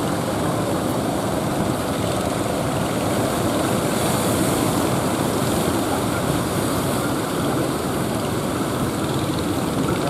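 Engines of motorised outrigger fishing boats running with a steady drone, mixed with the rush of breaking surf.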